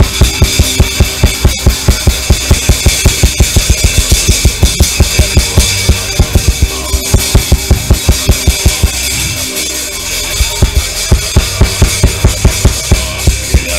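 Drum kit played with a fast, even bass-drum beat of about five strokes a second under snare and cymbals. The kick drops out for about a second around nine seconds in, then comes back.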